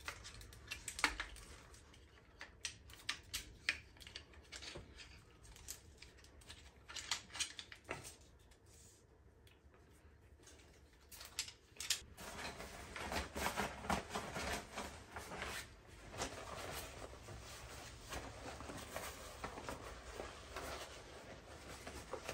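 Aluminium-alloy frame of a folding camp table being folded by hand: scattered light clicks and knocks from the poles and joints, then, about halfway through, steadier rustling as the folded frame and the fabric storage bag are handled.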